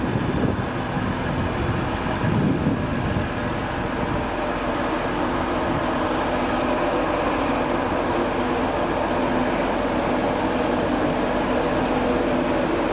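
InterCity 225 electric train creeping into a platform: a steady electric hum with a few constant tones over the low rumble of wheels on the rails, swelling briefly a couple of seconds in.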